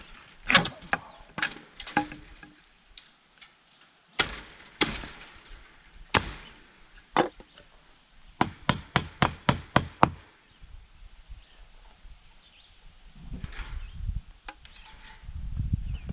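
Hammer blows on wood, nails being driven into a wooden door frame: scattered strikes at first, then a quick run of about seven blows around the middle.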